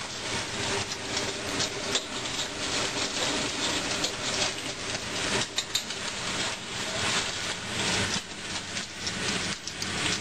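Egg deep-frying in very hot oil in a wok: a steady, dense sizzle full of small crackles as the oil spits around the puffed-up egg.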